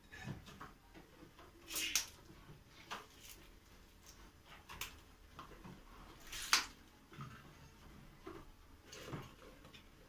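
Long green peppers being handled and packed by hand into a glass jar: scattered light knocks, clicks and rustles of peppers against glass and each other, the sharpest about two seconds in and again a little past six seconds.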